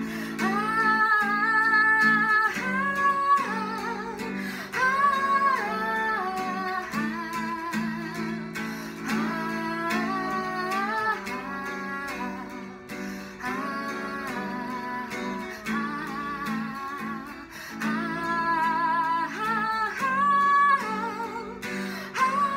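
Acoustic guitar strummed with a wordless melody line carried over it, the instrumental part of the song.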